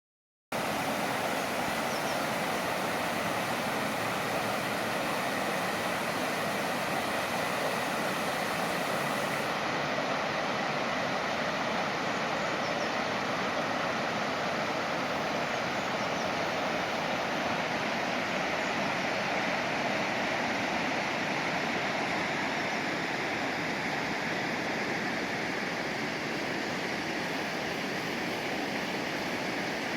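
The River Wharfe in flood: water rushing steadily.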